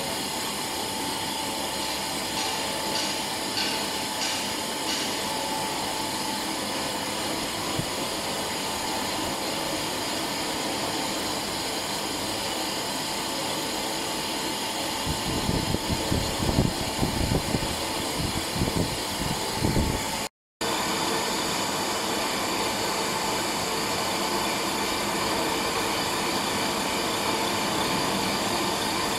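Feed extruder for pet and fish food running steadily: a constant machine hum with a high steady whine from its electric motors and screw. About fifteen seconds in, irregular low rumbling knocks come over it for several seconds, and the sound cuts out for a moment before the machine noise resumes.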